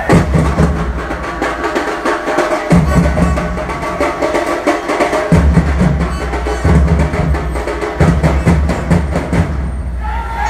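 Drums beaten in a fast, loud rhythm, with a deep drum underneath, and a crowd's shouting voices over them.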